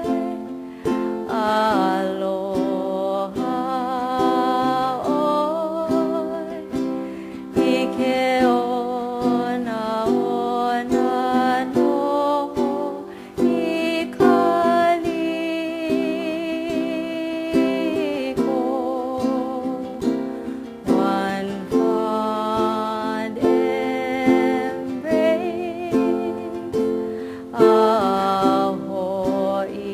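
Background music: plucked-string accompaniment under a wavering melody line that keeps going throughout.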